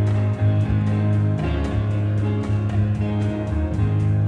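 Instrumental background music with sustained bass notes and a steady beat.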